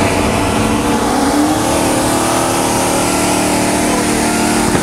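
Modified Ford Mustangs, one twin-turbocharged and one Paxton-supercharged, running at full throttle side by side in a street roll race. The engine note climbs about a second and a half in, then holds steady.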